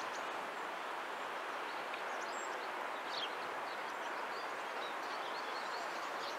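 Steady outdoor background noise with faint, scattered high chirps of small birds, more of them in the second half.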